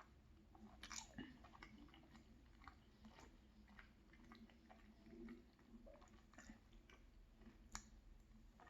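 Faint chewing of a soft carrot muffin, with scattered small mouth clicks and smacks.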